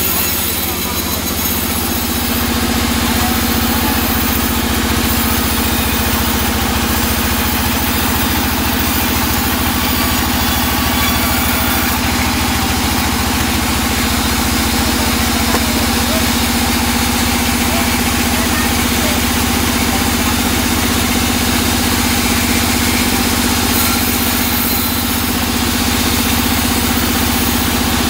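Band sawmill running with a steady drone, its blade sawing through a teak log with an even hiss.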